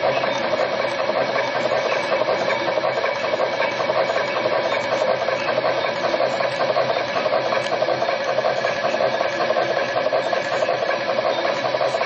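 Benchtop wire cutting and stripping machine running steadily as it feeds short wires through its rollers: a continuous, even mechanical running noise with a few steady tones.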